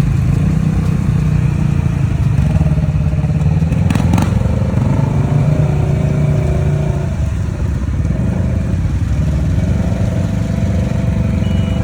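ATV engine running steadily, with a brief clatter about four seconds in.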